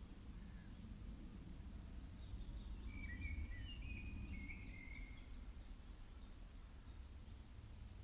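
Birds calling outdoors: a quick run of short, high chirps from about two seconds in, with a few clear whistled notes around the three- to four-second mark, over a steady low rumble.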